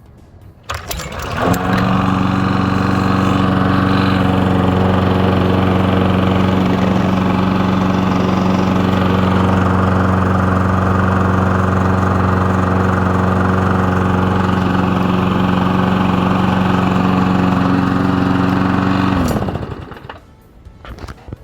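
Small single-cylinder engine of a walk-behind lawn mower catching and speeding up about a second in, running steadily at one speed, then shut off near the end and winding down.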